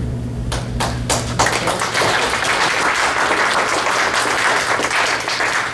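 Audience applauding: a few scattered claps at first, then full steady applause from about a second and a half in.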